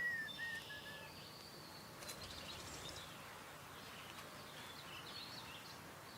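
Small birds chirping faintly: short high chirps and whistles over a steady background hiss, the clearest whistle right at the start.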